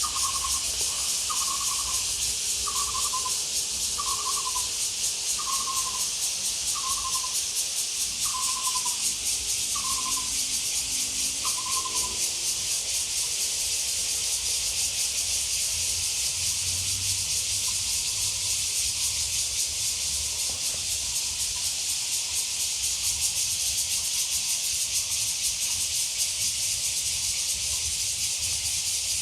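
A dense chorus of cicadas makes a steady, high, shrill buzz. Over the first twelve seconds, a short falling call repeats about nine times, roughly every second and a half.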